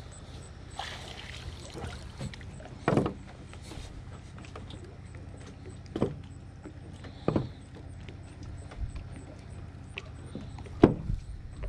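Wire-mesh crayfish trap handled on a wooden dock: about four sharp knocks and clanks of the trap, the loudest near the end, over a low steady wash of lake water.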